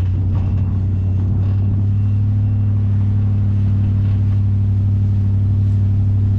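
An engine running steadily at constant speed, a deep even drone. A faint high beep repeats about twice a second during the first couple of seconds.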